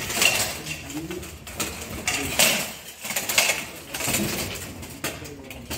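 Steel plate armour clanking and scraping as two armoured fighters grapple, with several sharp metal impacts and short low vocal sounds between them.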